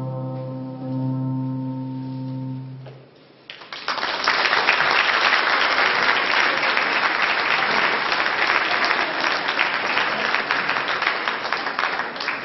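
A choir holds and releases a final sustained chord, and about three and a half seconds in the audience breaks into steady applause.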